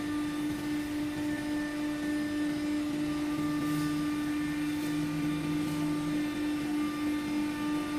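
Hydraulic power unit of a stationary scissor cargo lift running as the platform rises: a steady electric pump hum with a constant tone.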